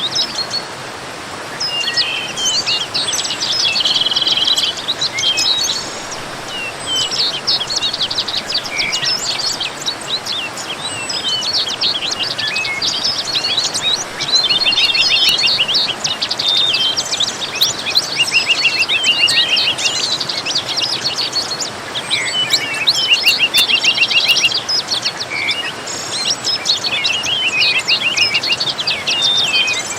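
Many songbirds singing and chirping in a dense, overlapping chorus, over a steady rush of falling water.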